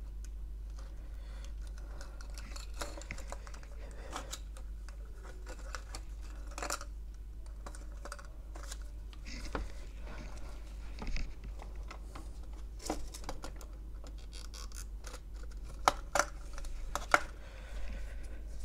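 Scattered small clicks, scrapes and taps from hand work on a circuit board and its soldering tools, over a steady low hum, with two sharp clicks near the end.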